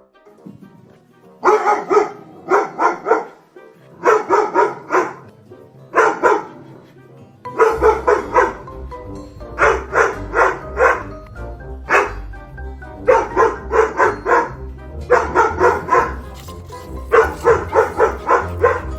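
Dog barking in quick runs of three or four barks, a new run about every two seconds, with a low steady musical bass coming in under the barks about seven seconds in.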